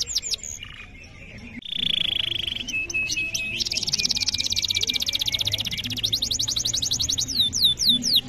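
Canary singing: fast runs of repeated high notes that sweep downward, a short pause about a second in, then a buzzy trill, a very fast rolling trill, and slower sweeping notes near the end.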